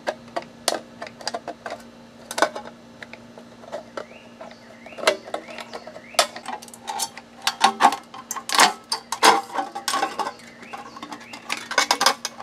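Tin snips cutting around an aluminum gutter downspout: a run of sharp metallic snips and crunches as the blades bite and the thin sheet flexes, coming in irregular clusters that grow denser through the second half.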